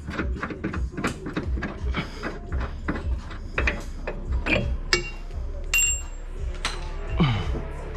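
Metal hand tools clinking and clicking at irregular intervals during car suspension work, with a short metallic ring about six seconds in.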